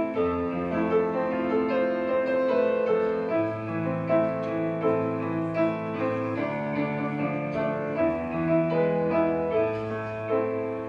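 Instrumental interlude of a slow Christian worship song: keyboard or piano playing a melody over sustained bass chords, without singing.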